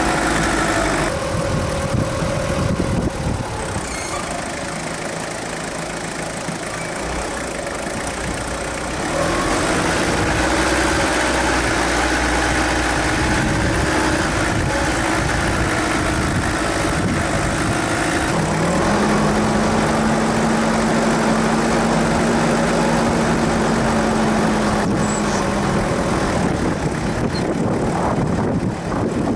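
Suzuki Grand Vitara's 2.0 turbodiesel engine running as the vehicle drives slowly over a rough dirt track, its hum shifting pitch several times as throttle and speed change.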